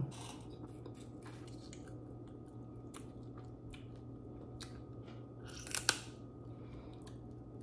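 Close-miked eating of crab legs: chewing with scattered small clicks, and a loud, crisp crackle a little before six seconds in.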